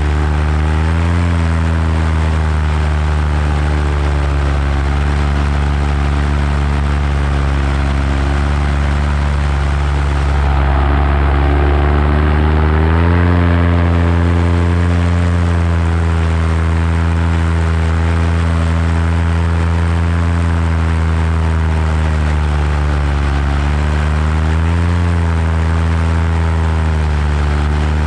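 Paramotor engine and propeller running steadily in flight, its pitch dipping and rising briefly a few times.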